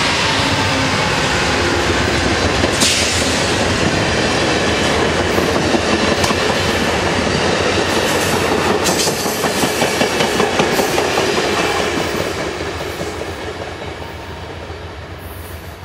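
Amtrak Capitol Corridor passenger train of bilevel cars passing close by, its wheels clattering over the rail joints. The sound stays loud and steady, then fades as the train recedes over the last few seconds.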